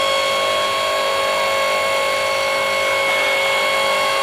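A 5-ton hydraulic log splitter's motor and pump running, a steady whine that does not change as the ram pushes into a short, tough round of firewood.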